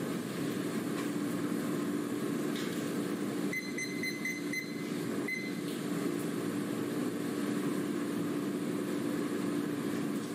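Steady hum and hiss of classroom room noise during silent desk work, with a short run of high electronic beeps about three and a half seconds in.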